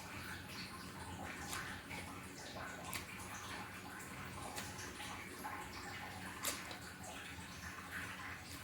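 Close-miked mukbang eating of fried fish: wet chewing and mouth smacking with irregular small clicks, over a faint steady low hum.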